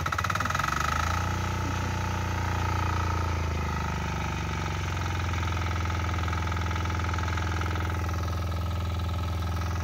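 Small engine-driven irrigation water pump running steadily just after being started; its engine speed wavers in the first few seconds, then holds even.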